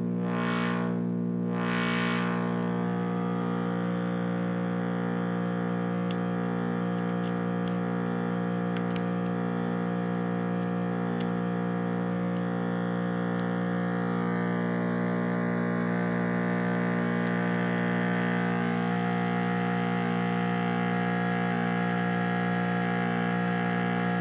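Analog synthesizer's ramp-core oscillator drone, a sawtooth tone with many harmonics, running through a Steiner voltage-controlled filter. The cutoff is swept up and back twice in the first two seconds, then the tone holds steady with small shifts in brightness. It is slightly clipped by the amplifier, which makes it sound harsher than intended.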